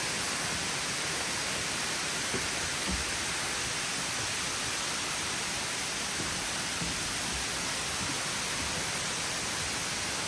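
Steady rushing of waterfall water, an even noise with no change, with a couple of faint low thumps.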